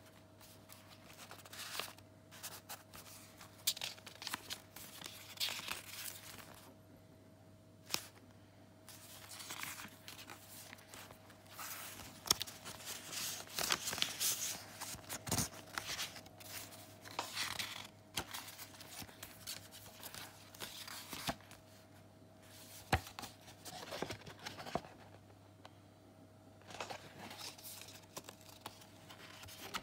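Paper pages of a handmade junk journal being turned and handled: irregular bursts of rustling and crinkling, with a few sharp taps.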